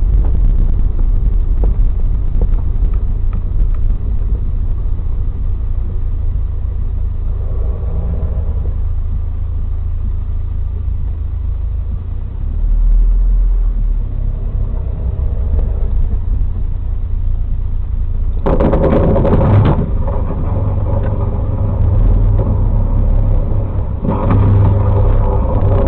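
Steady low rumble of a car's engine and tyres heard from inside the cab. About 18 seconds in comes a harsh burst lasting about a second, and near the end a second loud, buzzing burst as the dump truck strikes the high-voltage power line and it arcs.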